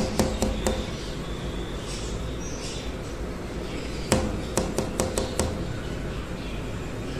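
Light sharp taps in two short runs, about four just after the start and about six more between four and five and a half seconds in, over a steady low background noise.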